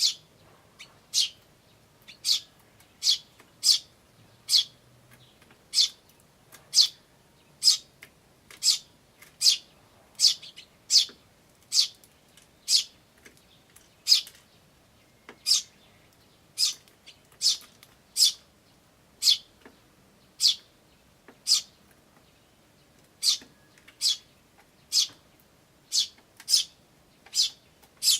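Eurasian tree sparrow calling a single short, high chirp over and over, about once a second.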